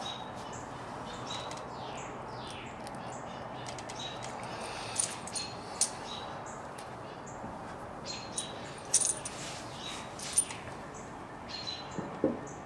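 Small sharp clicks and ticks of a replacement electrical plug being handled: its plastic housing and metal terminal screws and prongs knocking together. The clicks come scattered, more of them from the middle onward, over a steady low hiss.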